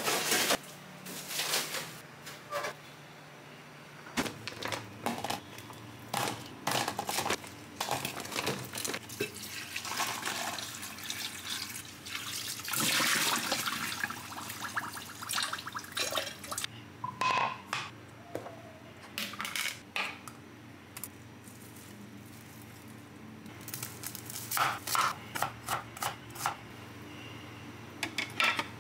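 Kitchen clatter of handling cookware and utensils, with the kitchen tap running into a plastic colander for about two seconds about halfway through. Near the end comes a quick run of knife strokes on a wooden chopping board.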